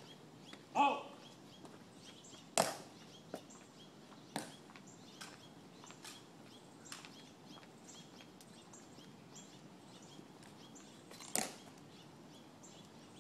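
Ceremonial guards' dress-shoe heels striking the stone plaza as they march: sharp clicks about once a second, then a single louder heel click near the end as a guard halts.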